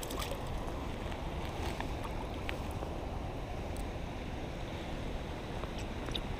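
Small rocky creek running steadily over stones in shallow water.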